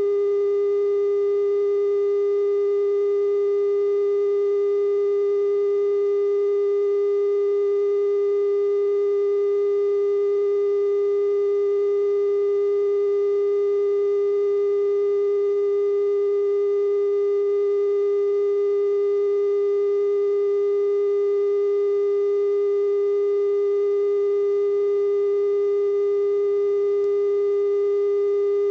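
Television station's 420 Hz test tone sounding with the color bars after sign-off: one steady, unbroken pure tone with faint overtones above it. It marks the station as off the air and serves as the audio reference level.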